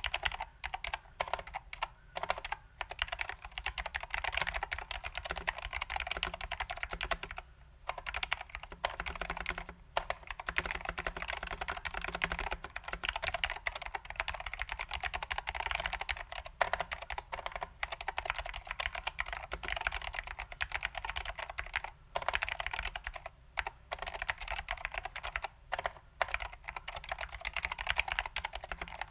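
Fast, continuous typing on a custom 60% mechanical keyboard in a BBOX 60 case, with SKCM Salmon Alps switches lubed with dry lube and vintage ALPS doubleshot keycaps: a dense run of key clacks broken by a few brief pauses.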